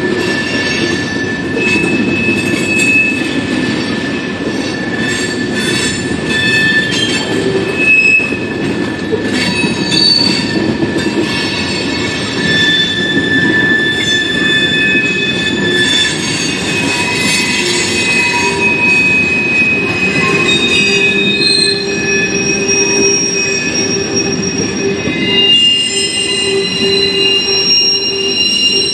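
Freight train cars rolling past at speed: a steady low rumble of wheels on rail, with several high, steady squealing tones from the wheels that come and go.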